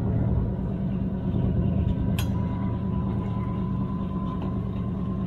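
LXD2 narrow-gauge diesel locomotive running along the line: a steady low engine drone and rumble. A sharp click comes about two seconds in, followed by a thin steady whine.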